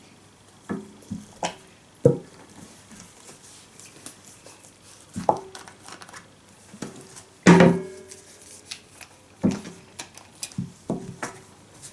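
Plastic glitter-glue bottles being handled, opened and set down on a table: scattered knocks and taps, the loudest about seven and a half seconds in, several leaving a brief ring.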